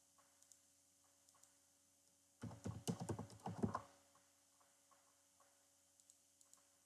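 Computer keyboard typing: a quick run of keystrokes lasting about a second and a half, starting about two and a half seconds in, as a number is typed into a field. A few faint clicks are heard before and after it.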